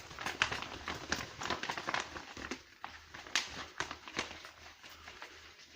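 Paper and packaging crinkling and rustling as posters are handled, a rapid run of small crackles that thins out about halfway through into a few separate clicks.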